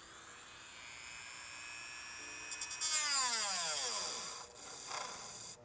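Dremel rotary tool with a cut-off wheel running at high speed in a steady whine, its pitch falling sharply about three seconds in as the wheel is set against the plastic cowl piece to trim it.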